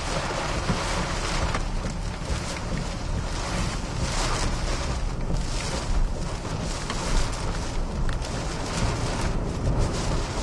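Hurricane wind and heavy rain lashing a moving truck, heard from inside the cab: a continuous rushing noise that swells and eases with the gusts.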